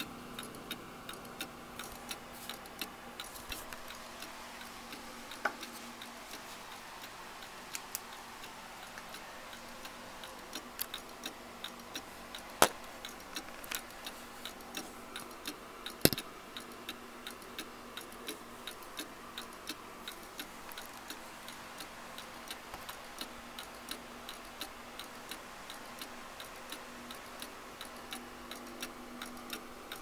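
Seth Thomas 89 AL key-wound tambour chime clock movement ticking steadily and evenly as the pendulum escapement runs. A few louder, sharper clicks stand out in the middle.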